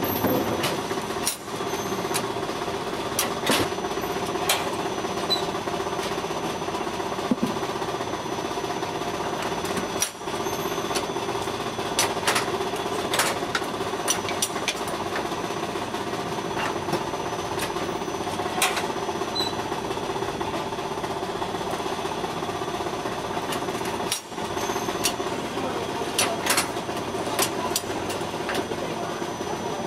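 Automatic batter-dispensing mini-bread machine running: a steady mechanical hum, broken by irregular sharp clicks and clacks as the metal dispenser plates work over the cast-iron molds.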